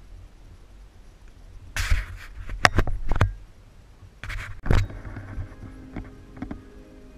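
Loud scraping and rubbing close to the microphone with several sharp clicks, in two bursts: about two seconds in and again near the middle. Faint steady musical tones come in during the last couple of seconds.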